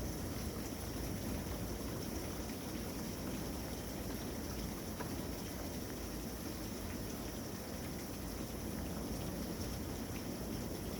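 Steady storm wind rushing outdoors, with a low rumble of wind buffeting the microphone.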